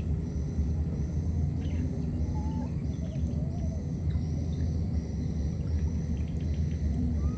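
Outdoor pond-side ambience: a steady low rumble under a high, pulsing insect- or bird-like call that repeats evenly every half second or so, with a few short bird chirps scattered through.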